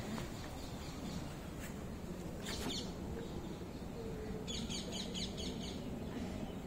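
Small birds chirping: a single short call about two and a half seconds in, then a quick run of chirps at around five seconds, over a steady low background noise.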